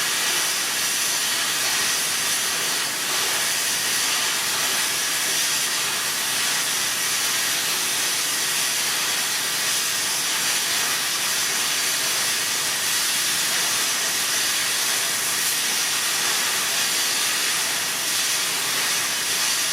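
A steady, even hiss with no breaks or changes, brightest in the high register.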